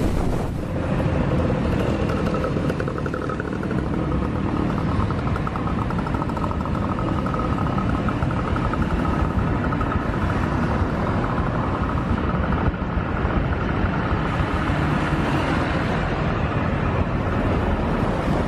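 Road traffic: a steady rumble of motorcycle and car engines and tyres, with a faint steady whine through the middle.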